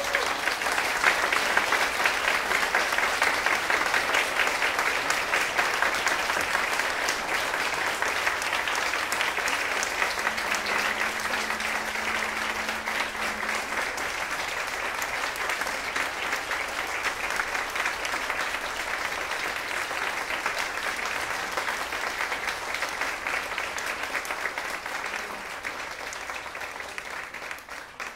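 Audience applauding: dense clapping that starts suddenly as the violin stops and thins out near the end.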